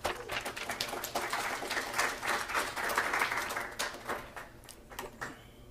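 Audience applauding, thinning out to a few last claps near the end.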